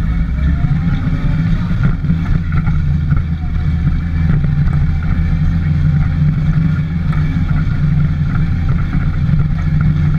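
Motorcycle engine running steadily while the bike rides slowly along a dirt track, heard close from the handlebars.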